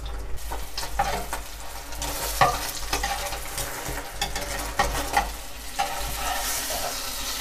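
Egg omelette sizzling as it fries in oil in a black pot, with a metal spatula scraping and tapping against the pot a number of times as the omelette is worked and folded over.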